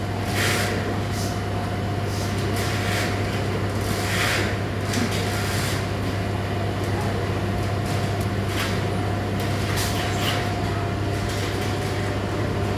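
Intermittent short scraping swishes of a hand tool working wet concrete, about eight in all, over a steady machine hum.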